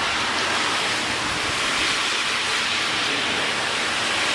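Steady, even rush of typhoon rain and wind.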